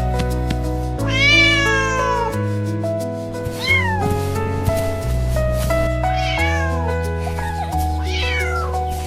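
A cat meowing four times over soft background music of sustained chords; the first meow, about a second in, is the longest and falls in pitch, and the later three are shorter.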